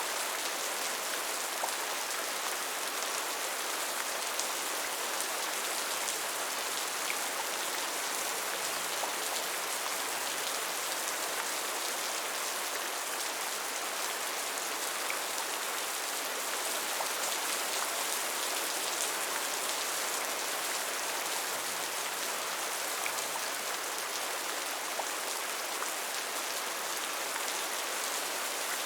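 Steady rain falling, an even hiss of many drops with scattered faint individual drop ticks.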